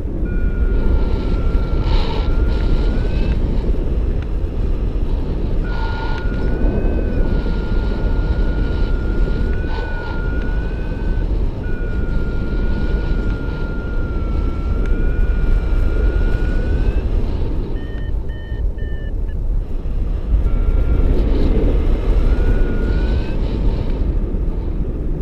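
Airflow rushing over the microphone during a paraglider flight. Over it runs a thin electronic tone that wavers and slides a little in pitch and breaks off several times. A short pair of higher beeps comes near the end.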